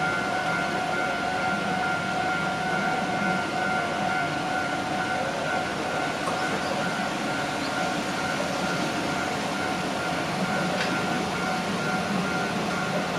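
Japanese railway level crossing warning alarm ringing steadily, its electronic bell tone held over the noise of an electric train.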